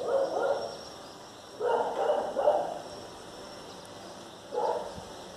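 A dog barking in three short bursts, one at the start, one about two seconds in and a shorter one near the end.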